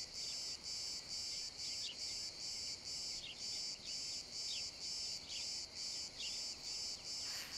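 Crickets chirping in a steady, even rhythm of about three pulses a second, with a few faint short chirps scattered among them.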